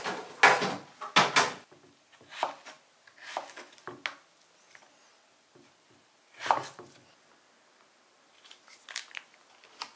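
A series of separate clunks and knocks of kitchen handling: glass bottles set down on a table in the first second or so, then a knife cutting cucumber on a wooden cutting board. A few light knocks near the end as vegetable sticks are set on a plate.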